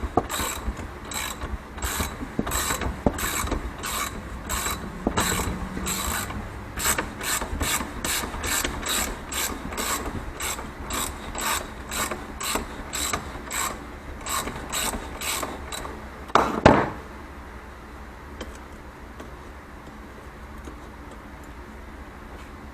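Ratchet wrench clicking steadily, about two or three clicks a second, as it cranks a spring compressor on an ATV coil-over shock. A single louder metallic knock comes about three-quarters of the way in, and then the clicking stops.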